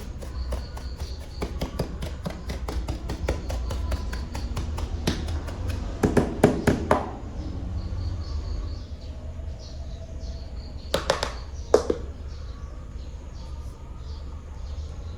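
Plastic animal toys being handled, with rapid light clicks and taps that thin out about halfway through, followed by a couple of sharper knocks. A steady low rumble runs underneath.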